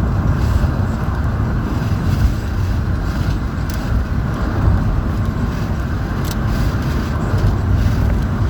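Steady rumble and road noise of a moving car, even throughout.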